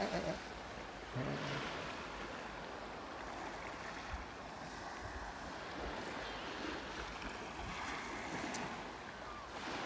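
Steady wash of wind and distant surf, with a few low bumps of wind on the microphone.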